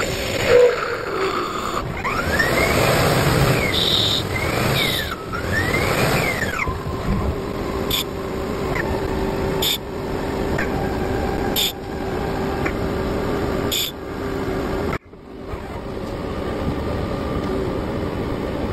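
CNC lathe cutting a cast iron part, with drilling and turning. A whine rises and falls in pitch several times over the first few seconds, under a steady machining noise, and a few sharp clicks come every couple of seconds. Near the end the sound cuts out abruptly for a moment, then the machine runs on steadily.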